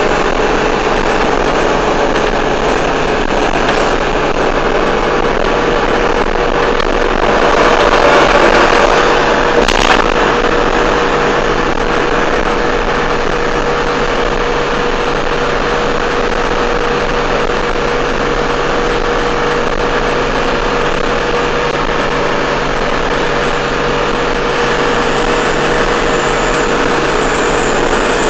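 Engine and road noise inside a truck cab cruising at highway speed: a steady drone with a constant hum. It grows louder for a couple of seconds about eight seconds in, and there is a single click near ten seconds.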